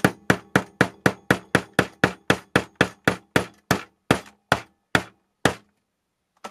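Hammer lightly tapping a press-fit nut down onto a Headshok suspension damper's top: about four taps a second, each with a short ring. The taps slow and stop about five and a half seconds in. The nut is being driven down until it is seated at the right depth with no play.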